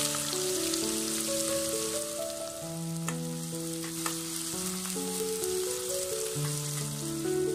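Chopped onions sizzling in hot oil in a kadai as they are stirred with a spoon, a steady high hiss of frying.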